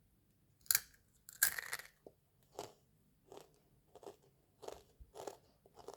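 A crunchy rolled corn tortilla chip (Takis Volcano) is bitten into, with a loud crunch about one and a half seconds in. Shorter crunches follow at a steady pace of about three every two seconds as it is chewed.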